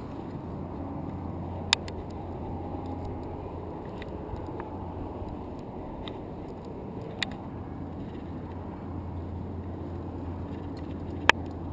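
Steady low rumble of wind on a climber's body-mounted action camera, broken by three sharp clicks about two seconds in, about seven seconds in and near the end.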